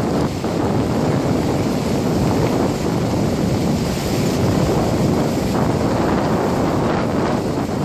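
Krupp excavator's engine running steadily, with wind buffeting the microphone.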